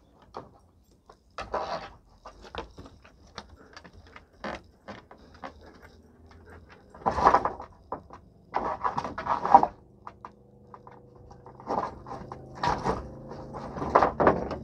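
Loose wooden boards knocking and clattering on a wooden deck as a Belgian Malinois noses under and climbs over the stack, with claws scraping and tapping on the wood. The clatter comes in bursts, loudest about seven, nine and thirteen seconds in.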